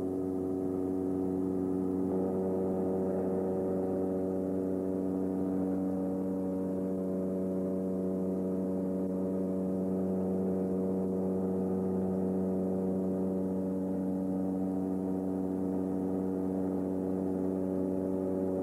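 Steady cabin drone of a Beechcraft King Air 200's twin Pratt & Whitney PT6A turboprop engines and propellers in flight, heard from inside the cabin: an even hum of several held tones that does not change.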